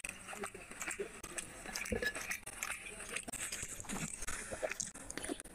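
Close-miked wet eating sounds: fingers squelching through chicken feet in curry gravy, with mouth chewing and smacking, making an irregular run of small clicks and squishes.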